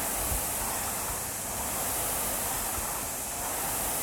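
Air-resistance rowing machine's fan flywheel whooshing steadily under hard rowing, swelling and easing with each stroke.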